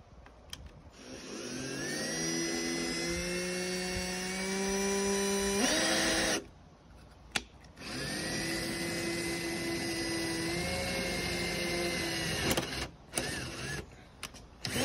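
Handheld drill boring a hole through an aluminum VEX standoff with an 11/64 bit, in two runs of about five seconds each. The motor whine rises as it spins up at the start of the first run, then holds steady while cutting. There is a short pause with a click between the runs, and small clicks near the end.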